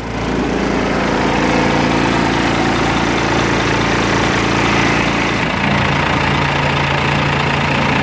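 1988 Blue Bird International S1800 bus engine idling steadily just after a cold start, running smoothly now that it has caught. Its note changes about five and a half seconds in.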